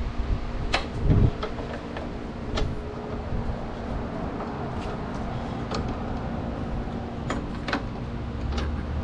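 Hand tools working a small metal fastener loose: scattered sharp metallic clicks and a dull thump about a second in, over a steady background hum.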